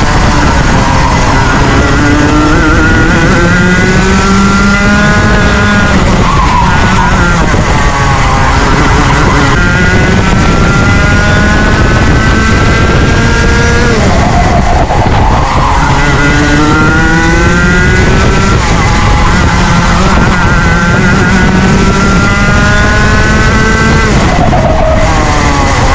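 Junior Rotax 125cc two-stroke kart engine at racing speed, its pitch climbing for several seconds and then dropping sharply, over and over, as it accelerates and then slows for corners.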